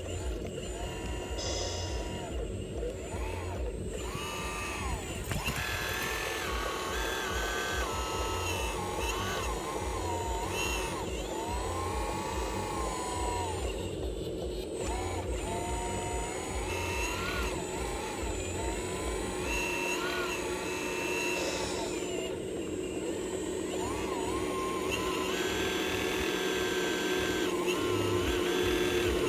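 Electric-driven hydraulic pump of a scale RC hydraulic excavator, whining steadily as the machine digs and loads sand. The whine grows slightly louder toward the end.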